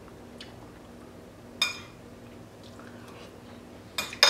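A metal spoon clinking against a dish: one ringing clink about one and a half seconds in, then two in quick succession near the end, the last the loudest, over a low steady hum.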